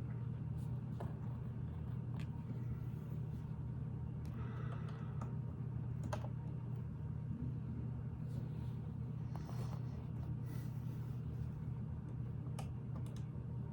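Scattered small plastic clicks and clatters of Lego pieces being picked up, handled and pressed together, over a steady low hum.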